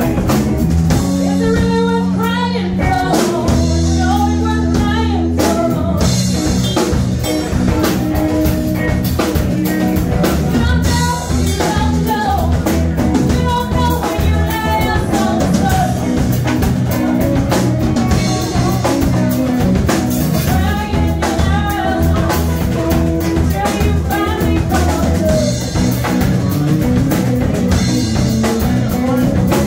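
Live band playing a song: a woman singing over strummed acoustic guitar, electric guitar, electric bass and a drum kit.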